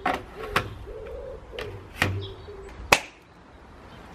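About five sharp clicks and knocks of a road bike being got ready, the loudest about three seconds in, starting with a plastic water bottle pushed into its bottle cage.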